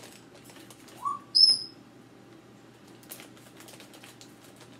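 Two short whistle-like chirps about a second in: a quick rising note, then a brief, louder, very high piercing tone. Faint rustles of a plastic candy bag being handled follow later.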